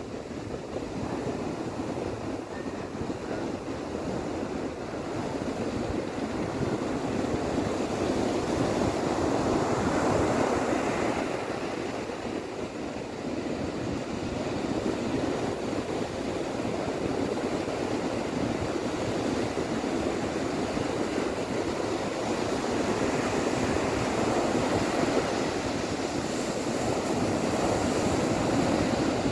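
Ocean surf washing onto a beach, a steady rush of breaking waves that swells louder about ten seconds in and again near the end.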